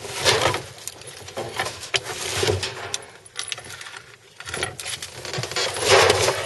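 Scattered light knocks, clinks and scrapes from a pile of lumber, metal sheeting and plastic pipe as it is disturbed, with a louder scraping rustle about six seconds in.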